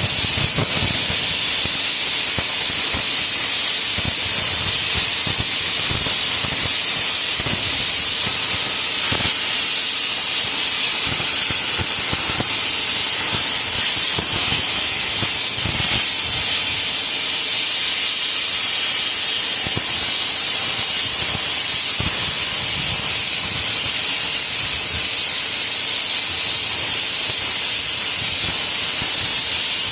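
Compressed air hissing loudly and steadily from an air tool working on a car frame, with faint irregular knocks underneath.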